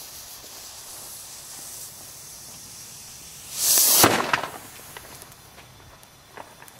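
Homemade potassium nitrate–sugar rocket motor clamped in a vise igniting: about three and a half seconds in, a short rising hiss ends half a second later in a single sharp bang that fades within a second, the motor bursting rather than burning through.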